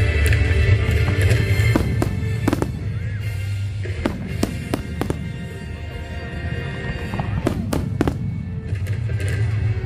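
Fireworks display: aerial shells bursting in a string of sharp bangs at irregular intervals, over loud accompanying music with a steady bass.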